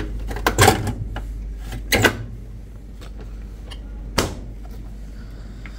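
Clatters and knocks of a top-loading washing machine being handled: a clatter about half a second in, another about two seconds in, and a sharp knock about four seconds in, over a steady low hum.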